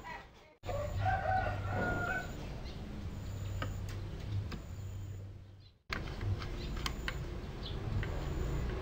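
A rooster crowing once in the background, about a second in, over a low steady hum and a few faint clicks. The sound drops out briefly near the start and again just before six seconds in.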